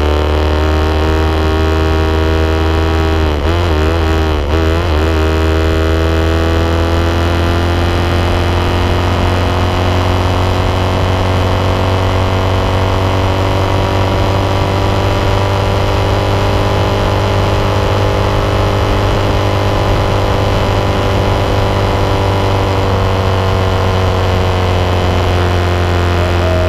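Honda 90 motorcycle's small single-cylinder four-stroke engine running steadily at high revs on the move, over a constant low wind rumble. Its pitch sags slowly, then climbs again, with a brief wavering a few seconds in.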